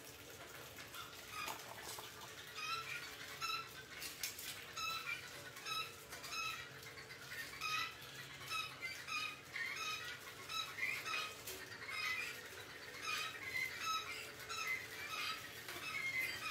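Rats squeaking over and over in short, high chirps, about one or two a second, with a few faint clicks among them.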